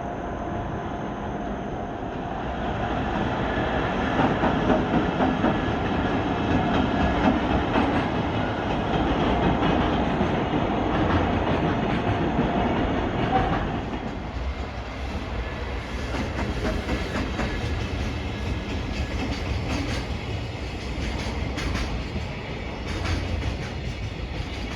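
A JR Freight container train hauled by an EF210 electric locomotive running past: loud rolling rumble with a steady whine, swelling after about two seconds. About fourteen seconds in it drops to a lower rumble, with the regular clickety-clack of wagon wheels over rail joints.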